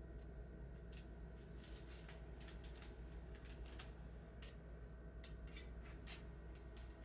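Faint, irregular light clicks and taps, several close together in places, over a steady low hum.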